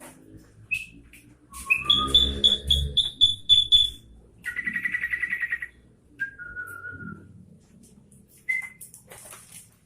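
Caged bulbul singing: short whistled notes, then a quick run of about eight repeated high notes, a buzzy trill and a lower falling whistle. A low rumble sits under the repeated notes.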